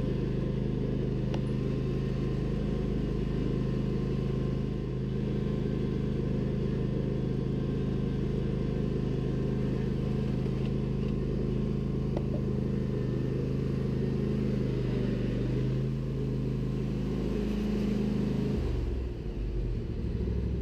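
Husqvarna riding lawn tractor engine running steadily as the tractor is driven on a test run after its K46 hydrostatic transmission was repaired. Near the end the steady engine note drops and turns uneven.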